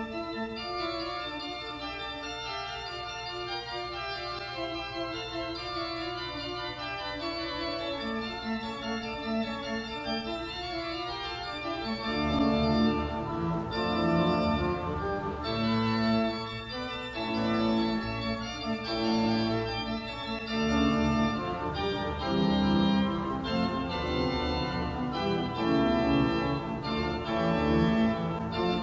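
Organ music: sustained chords held and changing slowly, growing louder with a fuller bass about twelve seconds in.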